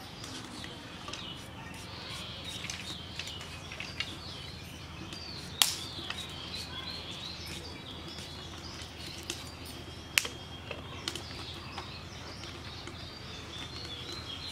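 Small birds chirping steadily over a low hum, with scattered sharp clicks and scrapes from a potato being peeled against the curved iron blade of a bonti. Two of the clicks, about five and ten seconds in, stand out.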